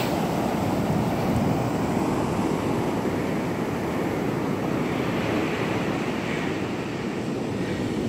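Ocean surf breaking and washing up a sandy beach: a steady rush of waves.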